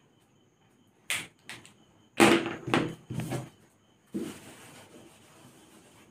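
Whiteboard duster and marker being handled: a click about a second in, a few short loud scrapes, then a longer, softer wipe of the duster across the board.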